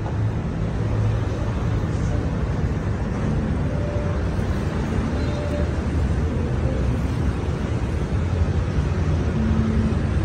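Steady low rumble of street traffic with no distinct events.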